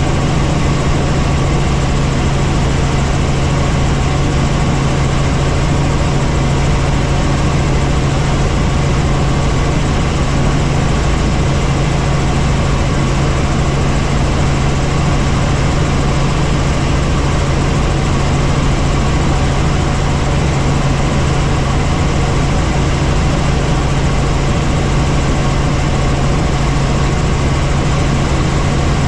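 Helicopter in flight, heard from on board: a loud, unchanging drone of engine and rotors with a steady low hum beneath.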